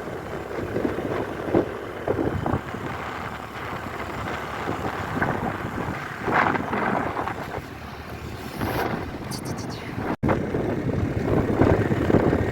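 A vehicle riding along a rough road, its engine and road noise mixed with wind buffeting the microphone, in uneven surges. The sound cuts out for an instant about ten seconds in.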